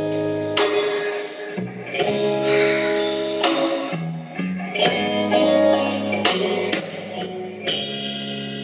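Live band playing an instrumental passage of a slow blues song: electric guitar over bass guitar and drums, with drum and cymbal hits on a slow beat.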